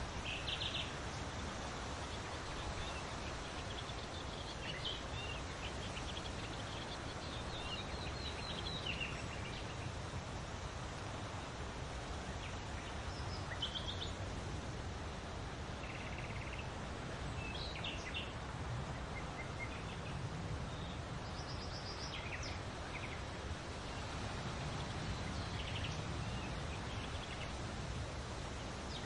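Outdoor ambience: a steady hiss of background noise with scattered short bird chirps and calls throughout.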